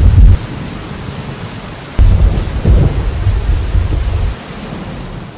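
Thunderstorm: thunder rumbling over steady rain. One deep rumble dies away just after the start, and a second rolls in about two seconds in and lasts a couple of seconds before fading.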